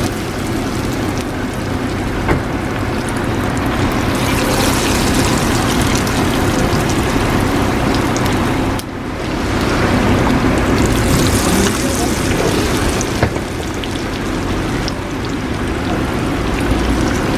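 Battered banana pieces deep-frying in hot oil in a stainless pan: a steady sizzle and crackle that gets fuller as more pieces go in, with a brief drop about halfway. A steady low rumble runs underneath.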